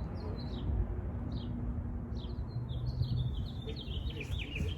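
Small birds chirping: short high chirps that fall in pitch, repeating about every half second, then a quick run of chirps near the end, over a steady low rumble.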